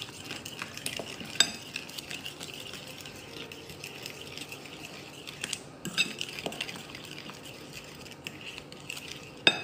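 Fork stirring mashed banana and egg batter by hand in a metal bowl: a steady wet scraping with the tines clicking against the bowl now and then, and one sharper clink near the end.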